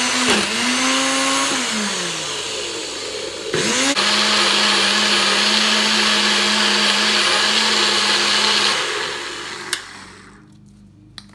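NutriBullet personal blender motor blending tomatoes into a purée. The motor slows and winds down about two seconds in, starts again a second and a half later, and runs steadily. It winds down near the end, followed by a sharp click.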